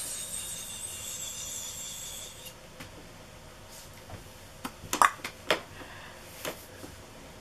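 A hiss lasting about two and a half seconds, then a quick run of sharp clicks and knocks, small makeup items being picked up and put down while she searches through them.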